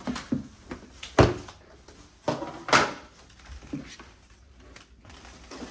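Knocks, clicks and scraping as a car-wash kit is unpacked and its bottles handled, with the sharpest knock about a second in and a longer scrape near the three-second mark.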